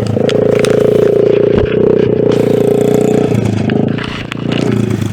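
Small pit bike engine revving hard, held at high revs for about three seconds, then easing off and revving up briefly again near the end.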